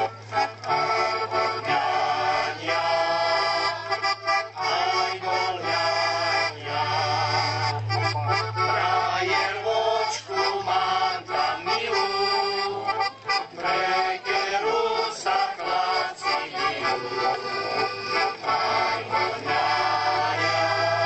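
Slovak folk song played on accordion, with a group of women singing along.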